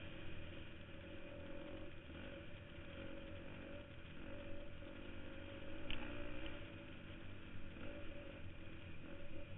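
KTM 250 XC-F dirt bike's single-cylinder four-stroke engine running under changing throttle as it rides along a dirt trail, its pitch rising and falling. One sharp tick stands out a little before six seconds in.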